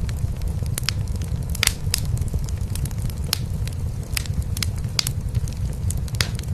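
A cat purring in a low steady rumble, mixed with a wood fire crackling in a fireplace: sharp pops and snaps at irregular moments over the purr.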